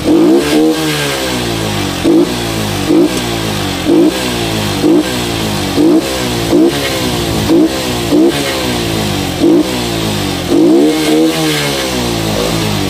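TVS Sport motorcycle's single-cylinder four-stroke engine, fitted with an aftermarket open air filter, revved in quick throttle blips while standing still, about one a second, with longer revs near the start and about eleven seconds in.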